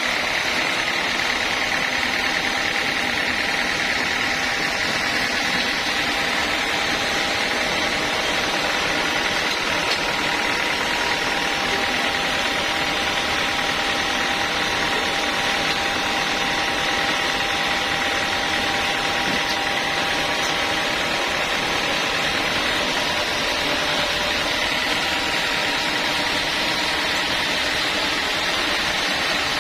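Homemade sawmill machine running steadily, an even mechanical drone with a constant high whine and no pauses.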